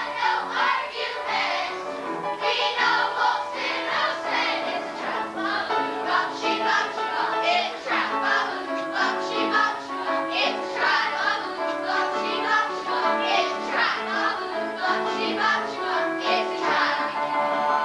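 A group of children singing together over backing music, with steady held instrumental notes under the voices.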